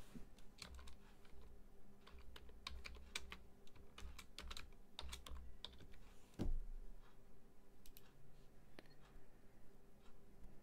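Typing on a computer keyboard: a quick, irregular run of quiet key clicks as a bookmark name is typed, with one louder click about six and a half seconds in.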